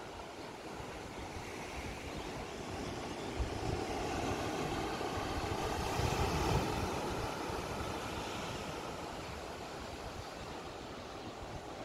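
Sea surf washing over a pebble beach. The wash swells about halfway through and then recedes. Wind gusts buffet the microphone throughout.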